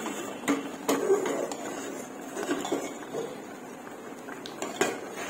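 Steel ladle stirring thick rice pudding in an aluminium pot, with a few sharp metal-on-metal knocks and scrapes against the pot.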